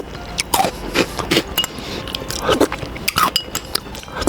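Chocolate-coated peanut candy balls (Choco balls) making many sharp little clicks and clinks, with a few louder short crunches, close to the microphone.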